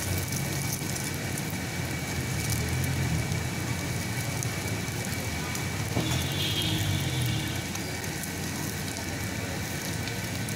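Paratha frying in oil on a large flat iron griddle: a steady sizzle while it is pressed and turned with a ladle and a metal spatula, with one light knock about six seconds in.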